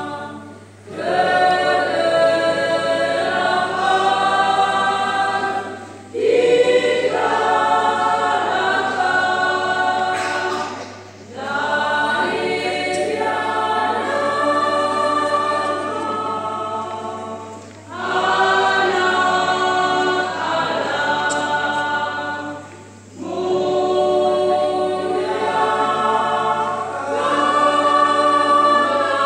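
Small women's choir singing a hymn in phrases of five to six seconds, with short breaks for breath between them.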